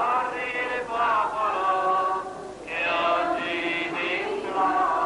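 A group of voices singing a slow religious chant, with long held notes.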